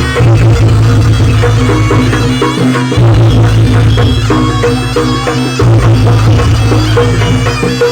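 Loud traditional Javanese folk-dance music: drums beating a driving rhythm under a reedy, shawm-like wind instrument.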